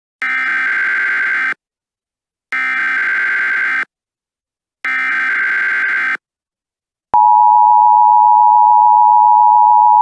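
Emergency Alert System SAME header: three identical bursts of shrill buzzing digital data tones, each about a second and a half long with short gaps between. About seven seconds in comes the steady two-note EAS attention tone. The sequence opens an alert that the screen gives as an Emergency Action Notification.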